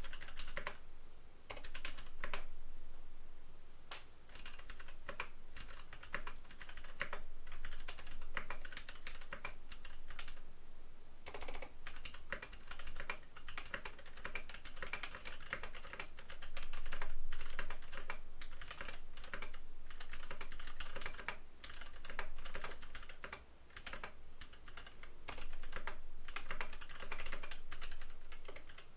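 Fast, continuous typing on a custom mechanical keyboard with lubed Box Royal tactile switches on a copper plate in a stacked acrylic case: rapid key clacks with a couple of brief pauses.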